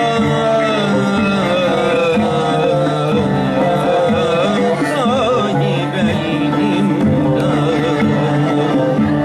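Live Turkish ilahi (Islamic hymn) singing over instrumental accompaniment: a voice holds long notes and curls through ornamented runs partway through, over a steady, sustained instrumental backing.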